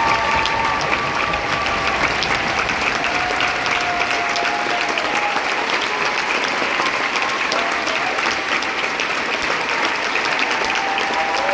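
Large theatre crowd applauding steadily, dense clapping, with long cheering calls rising over it near the start, a few seconds in, and again near the end.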